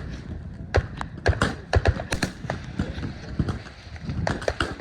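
Scattered gunfire from several guns firing at once, sharp shots landing irregularly, a few in quick succession.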